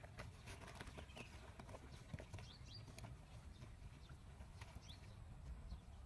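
Faint, irregular scratching and clicking of a dog's paws and a monkey's hands digging in dry, pebbly earth.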